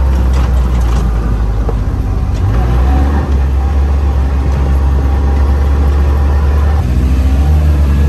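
Off-road side-by-side (UTV) engine running while the vehicle is driven, heard from inside its open cab as a loud, steady low rumble. The engine note shifts about two and a half seconds in and again near the end.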